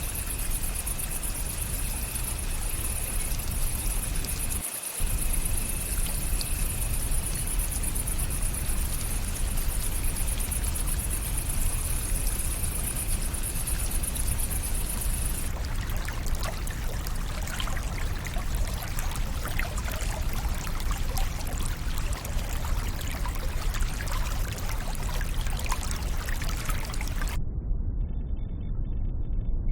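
Running water, a stream or waterfall, rushing steadily. Its texture changes abruptly about halfway through, and again near the end, where the high hiss drops away.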